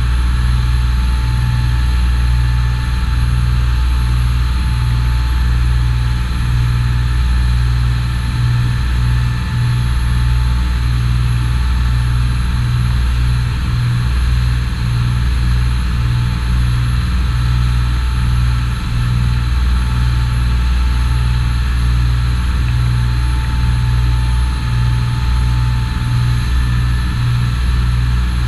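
Charter fishing boat's engine running steadily under way, a loud low drone that pulses quickly.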